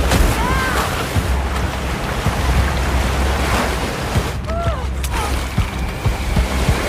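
Whitewater rapids rushing, a dense, steady noise of churning water over a deep low rumble. A voice cries out briefly about half a second in and again around four and a half seconds.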